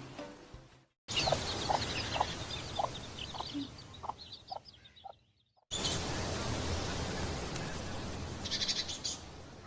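Birds calling in two short clips. In the first, short calls repeat about twice a second with high chirps above them. In the second, after a break, there is a steady outdoor background with a brief fast high trill near the end.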